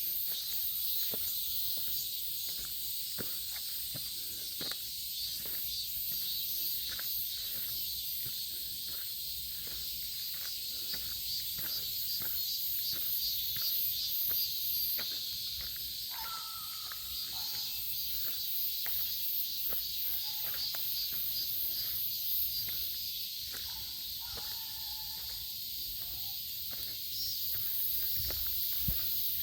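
Steady high-pitched chorus of insects, with a person's footsteps ticking about twice a second on the forest path.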